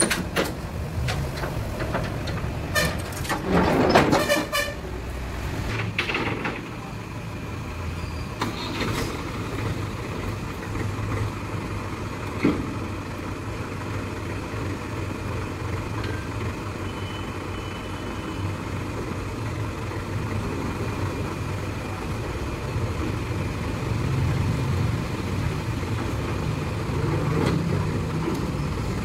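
Steel loading ramps clanking several times as they are shifted into place. Then a Mahindra 475 DI tractor's diesel engine runs steadily, growing a little louder near the end as the tractor backs down the ramps off the recovery truck.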